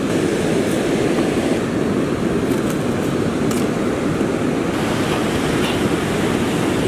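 Steady rush of breaking surf mixed with wind noise on the microphone.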